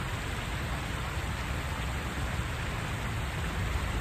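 Steady outdoor noise: an even hiss over a low, fluttering rumble, with no distinct events.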